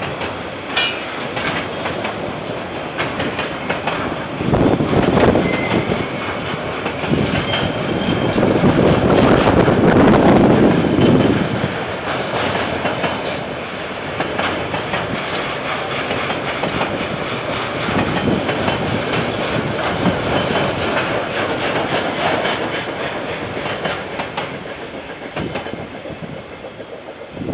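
A KiwiRail train passing, its wheels running steadily on the rails. It is loudest about ten seconds in and fades away over the last few seconds.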